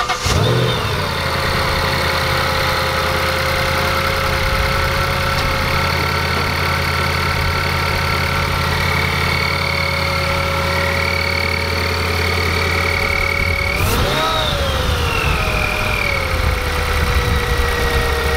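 Whipple-supercharged Ford Shelby GT500 V8 idling steadily with a high, steady whine over the idle. About fourteen seconds in, the engine is revved once briefly: the pitch jumps up, then glides back down to idle over a couple of seconds.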